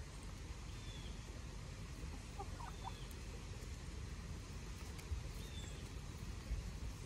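Chickens making a few faint, short clucks and chirps over a steady low rumble.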